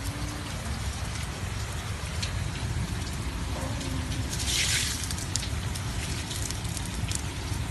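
Hail and rain falling steadily, with many sharp clicks of hailstones striking; a brief louder hissing rush about four and a half seconds in.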